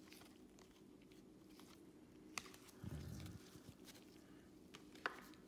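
Near silence with the faint clicks and rustle of trading cards being flipped through by hands in nitrile gloves, with a couple of sharper ticks and a short low sound near the middle.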